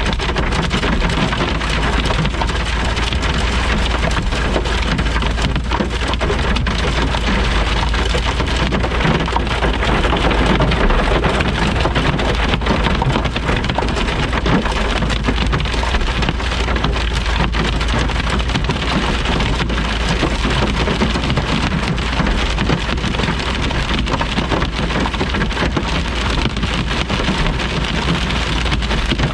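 Heavy thunderstorm rain coming down hard, a dense steady noise of countless drop impacts, over a continuous deep rumble.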